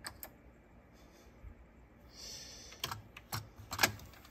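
Sharp mechanical clicks from a Nakamichi ZX-7 cassette deck's controls and tape transport: two at the start, then three about half a second apart near the end, with a brief soft hiss just before them. The deck is faulty and keeps acting on its own, with the record indicator blinking.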